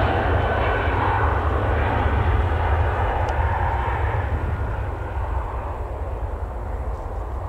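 Airbus A319 jet airliner taking off at full thrust: a steady, loud jet roar with a deep rumble, easing off a little in the last few seconds as it climbs away.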